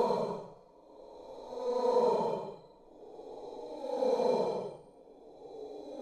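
Horror-style weeping in a woman's voice: long, breathy sobbing sighs that swell and fade about every two seconds.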